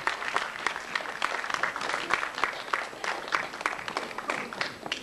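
Audience applauding: many hands clapping in a dense, irregular patter that dies down near the end.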